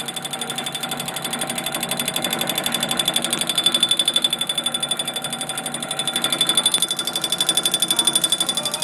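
Drill press running with a fast, even rattling pulse and a steady high-pitched whine.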